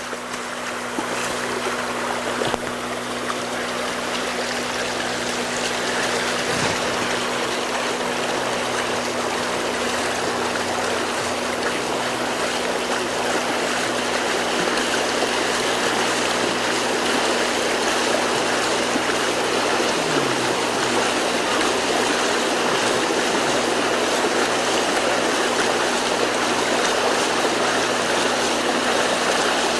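Shallow water rushing steadily, as where a flooded stream runs across a road, fading in over the first few seconds. A faint steady low hum lies underneath.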